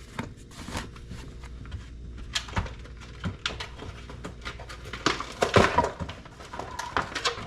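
Pliers and their packaging being handled: irregular rustling, crinkling and clicks, thickest about five to six seconds in.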